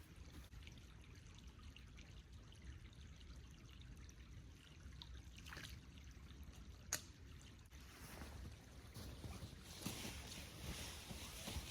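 Faint trickling water, with one sharp click about seven seconds in.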